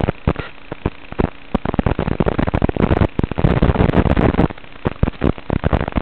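Crackling static from an analog FPV video receiver's recorded audio: sharp pops and clicks over a low steady hiss, thickening into a dense crackle from about two seconds in until about four and a half seconds in, as the analog video link breaks up.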